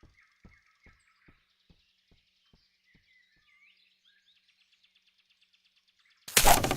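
Faint bird chirping over soft regular ticks, about two or three a second, that fade away. Then, near the end, a loud sudden burst of noise lasting about half a second.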